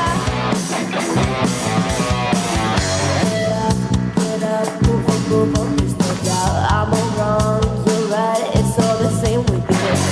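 A rock band playing live, with electric guitars over a drum kit.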